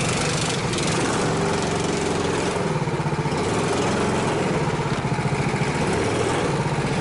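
Small petrol go-kart engines running at low revs, the kart's own engine loudest, its pitch rising and falling slightly as it creeps along.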